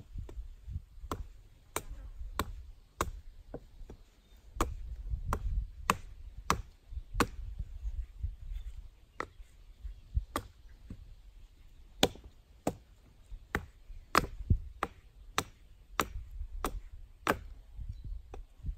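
An axe chopping and hewing wood: a long series of sharp, separate chops, about one or two a second with short pauses, as a piece of the saw frame is shaped by hand.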